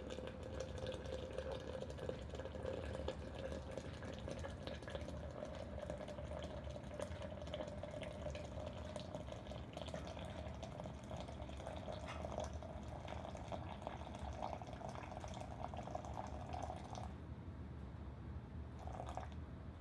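Hot water poured in a thin stream from a gooseneck kettle into a glass French press over wet coffee grounds: the main brewing water going in after the bloom. The pitch of the filling rises slowly as the press fills, and the pour stops near the end.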